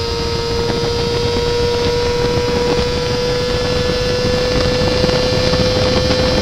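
Yamaha FZR 250 inline-four engine running at very high revs, near 16,000 rpm, as the bike accelerates at speed. It makes a steady high whine whose pitch climbs slowly.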